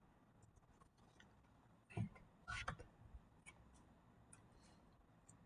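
Faint clicks and taps of a small screwdriver and screw being handled against a plastic Nerf blaster. There is a louder knock about two seconds in and a short run of clicks just after.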